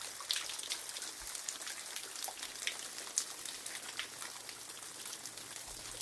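A thin waterfall spattering and dripping down a rock face: a steady hiss of falling water with scattered sharp drops striking rock.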